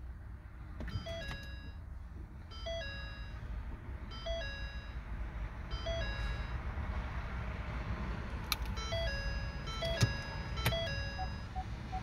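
2013 Ford C-Max Hybrid's instrument-cluster warning chime sounding over and over, a two-note falling ding-dong about every second and a half, signalling a door ajar, over a low steady hum that grows louder about halfway through. A few sharp clicks come near the end, then a quick string of short beeps.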